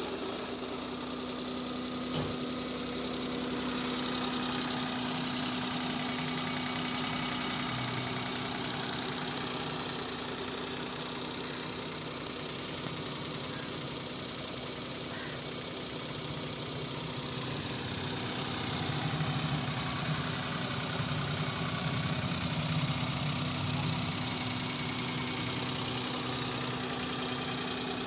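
Maruti 800's three-cylinder petrol engine idling steadily, just started after a cylinder head overhaul and running smoothly.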